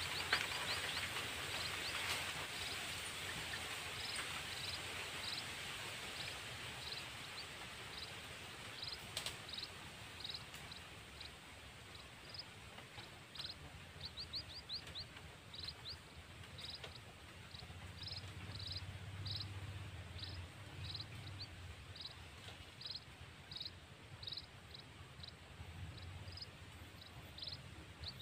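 Outdoor ambience: a steady hiss that fades over the first several seconds, under a small animal's short high chirp repeating about once or twice a second, with a couple of quicker runs of chirps.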